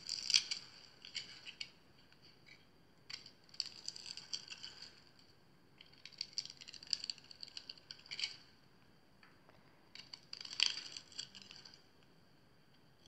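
Utility-knife blade cutting into a bar of soap scored into a grid, with crisp crackling and scraping as small cubes and shavings break off. The cutting comes in four spells of a second or two with short pauses between.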